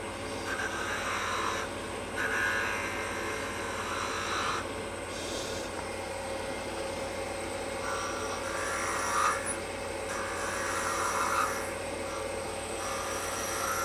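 Wood lathe running steadily, with a hand-held turning tool cutting a small mahogany finial in several short passes of light hissing scraping.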